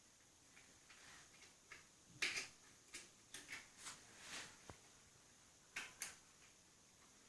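Faint scattered clicks, taps and rustles of hands handling and fitting small metal and plastic parts (throttle and carburettor) on a mini bike, with a few sharper taps about two seconds in and again near six seconds.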